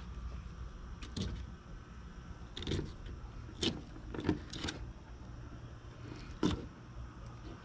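Knife cutting and scraping at the tail of an alligator gar through its hard, scaled skin: about six short sharp scrapes and cracks spread out over a low steady hum.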